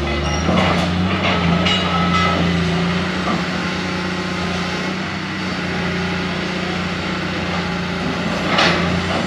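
Tracked excavator's diesel engine running steadily under work, with a few short metallic knocks and clatters from the machine and debris in the first couple of seconds and again near the end.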